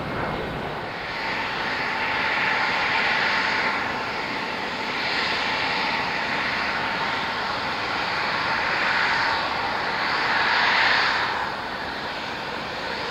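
Jet airliner engines heard from outside: a continuous rushing jet noise that swells and eases every few seconds.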